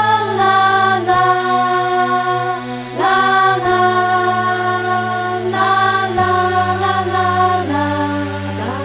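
Background music: slow held tones that slide up into each new note over a steady low drone, the chord changing every second or two.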